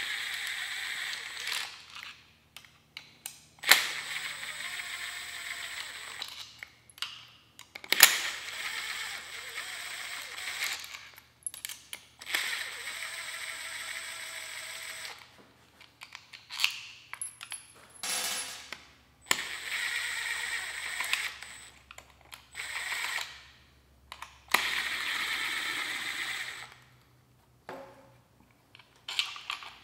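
Cordless driver with a hex bit spinning out the 5 mm Allen bolts that hold the end cap on a Hyper9 electric motor. It runs in about six separate spells of one to three seconds each, with pauses between. A few sharp clicks are the loudest sounds, about four and eight seconds in.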